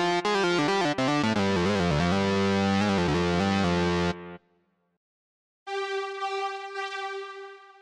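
Arturia Analog Lab V 'Brazen Lead' synth lead preset playing a line of changing notes over a bass tone, stopping about four seconds in. After a short silence the 'Breaking Glass' strings preset sounds one held note that fades away.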